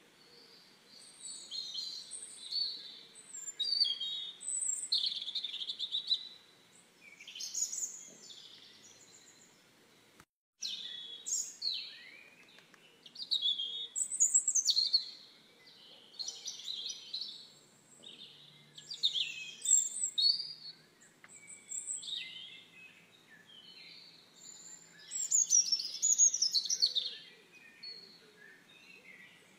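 Chicks peeping: many high, downward-sliding chirps in bursts of several at a time, with short lulls between. The sound drops out for a moment about ten seconds in.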